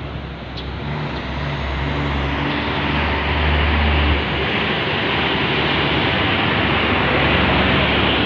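Street traffic noise with a motor vehicle's engine running close by, its low hum strongest in the first half and then fading under the steady road noise.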